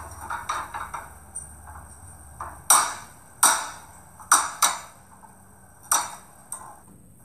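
A raw egg knocked against the rim of a small frying pan to crack it: about half a dozen sharp taps at uneven intervals, the loudest in the middle of the stretch.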